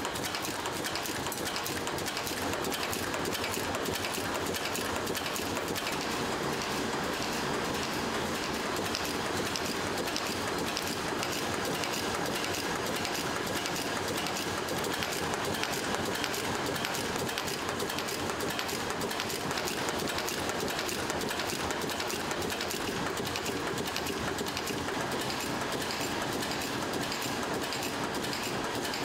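Cold heading machines forming screw blanks from steel wire, running with a fast, steady clatter of rapid strokes.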